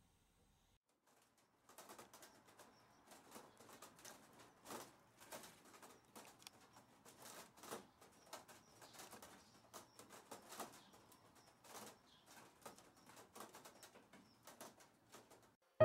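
Faint outdoor ambience of irregular soft clicks and rustles, about two a second, starting after a moment of near silence.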